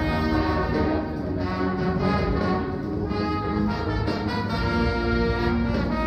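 Indoor marching winds ensemble playing, led by brass, in sustained chords that shift every second or so.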